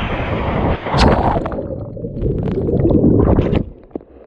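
Swimming-pool water heard from a camera plunged underwater: a splash about a second in, then a muffled low rumble and gurgling of bubbles with scattered ticks, fading near the end.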